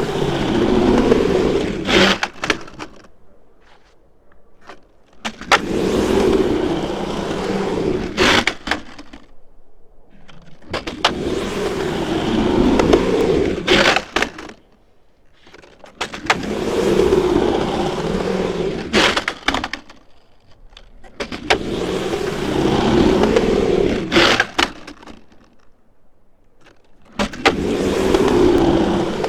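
Skateboard wheels rolling over pavement in repeated passes, about five in all. Each swells for roughly three seconds and ends in a few sharp clacks before falling quiet.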